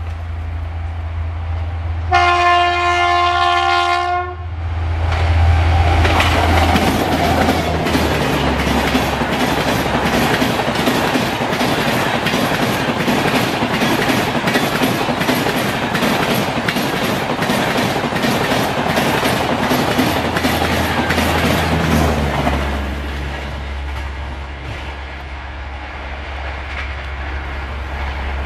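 WAP-7 electric locomotive sounding one horn blast of about two seconds as the Rajdhani express approaches. The LHB coaches then pass at speed with a loud, rapid, regular clickety-clack of wheels over the rail joints, which drops to a quieter rumble near the end.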